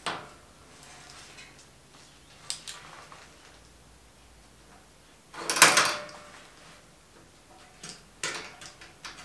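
Toggle latch on a sheet-metal box being worked by hand: a few light metal clicks, one louder metallic clack about halfway through, and more clicks near the end.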